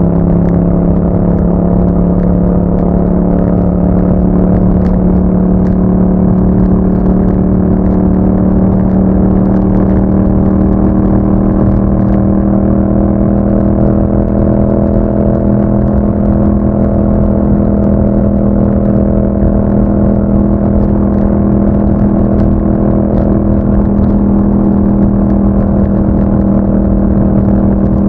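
2021 Yamaha MT-07's parallel-twin engine through an Akrapovic exhaust with a dB killer, running at steady revs under way; its pitch creeps slowly up.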